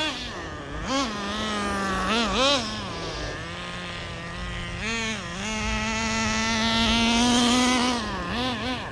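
Traxxas Nitro Rustler's small nitro glow engine running, revved in quick throttle blips that rise and fall, then held at a steady, slightly climbing pitch for a few seconds before more blips near the end.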